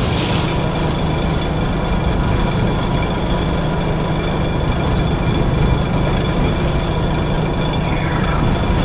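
Fishing boat's engine running steadily, a constant low drone with a hiss over it, and a faint falling whistle near the end.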